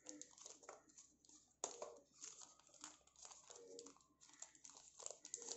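Faint crinkling and rustling of a small frosted plastic pouch being opened and handled, in short scattered crackles.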